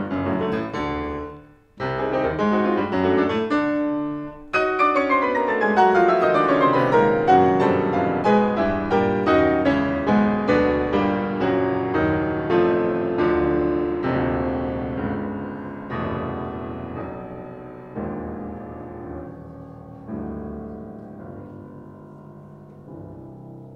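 Steinway grand piano played solo in a fast, loud passage that breaks off briefly twice in the first few seconds. It then turns to rapid descending runs that grow gradually quieter toward the end.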